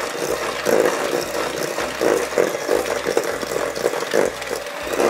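Electric hand mixer running, its beaters creaming butter and sugar in a stainless steel bowl; the motor noise swells and dips unevenly as the beaters move through the mixture.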